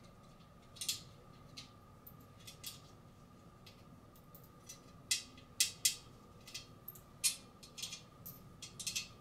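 Light metallic clicks and ticks at irregular intervals as the metal crown frame of a billiard light and its small wing-nut fittings are handled and lined up, with a cluster of louder clicks about five to six seconds in.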